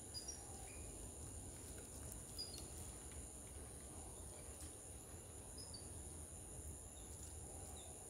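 Faint garden ambience dominated by a steady, high-pitched insect drone, with a few brief, high chirps scattered through it.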